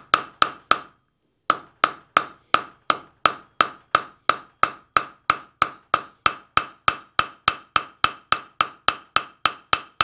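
Hammer setting a steel rivet cold, peening the pivot rivet of a small forged iron latch on an anvil. A quick, even run of light strikes, about four a second, each with a short metallic ring, with one brief pause about a second in.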